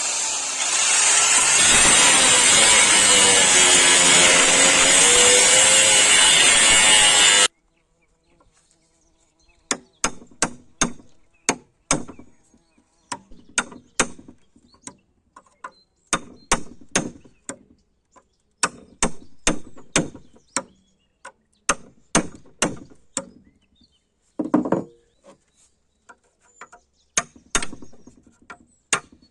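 A power tool cutting the steel of a chainsaw bar, its motor pitch wavering under load, for about seven seconds before stopping abruptly. After that come sharp, irregular clicks and taps in quick clusters of a few at a time.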